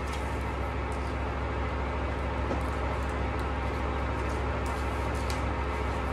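Steady low hum and hiss in the room, with faint, scattered rustles of paper as a note and envelope are unfolded and handled.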